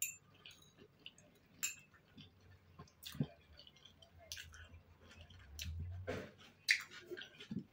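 Quiet chewing of a boiled vareniki dumpling and rye bread, with wet mouth smacks and scattered small sharp clicks.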